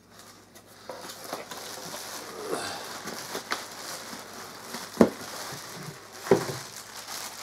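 Plastic wrapping crinkling and a cardboard box rustling as a bagged inflatable snowman is worked loose and lifted out of its box, with two sharp knocks about five and six seconds in.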